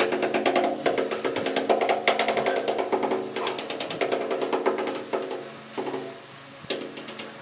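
Rubber mallet rapidly tapping a ceramic wall tile to bed it into the tile adhesive, about ten taps a second in quick runs, thinning to a few scattered taps after about five seconds.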